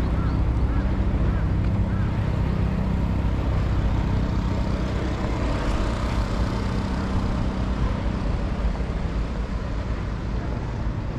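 Outdoor city ambience: a steady low rumble of traffic, with a vehicle passing about halfway through.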